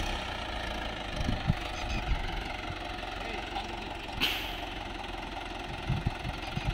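Swaraj 843 XM tractor's three-cylinder diesel engine running steadily under heavy load while stuck in deep sand with a loaded trolley, its front end reared up and rear wheels digging in. A few low thumps, and a brief hiss about four seconds in.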